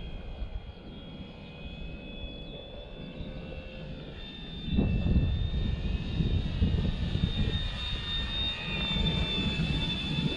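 Foam RC plane's motor and propeller whining high in flight, its pitch wavering and sliding slightly as the plane moves and the throttle changes. Wind rumbles on the microphone, louder from about halfway in.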